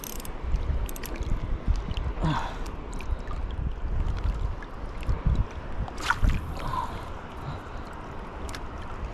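Wind rumbling on the microphone over sloshing shallow water at the shoreline, with a couple of brief sharp noises.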